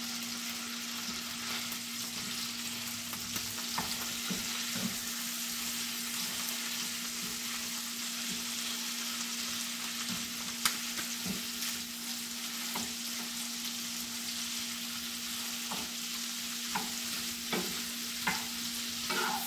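Shredded pork frying in a nonstick pan with a steady sizzle. A wooden spatula stirs and turns it, scraping and tapping the pan now and then. A steady low hum sits underneath.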